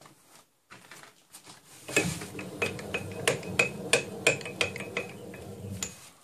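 Homemade metal lathe's carriage being wound back along the ways. From about two seconds in there is a run of sharp metallic clicks and knocks, roughly three a second, with a faint metallic ring.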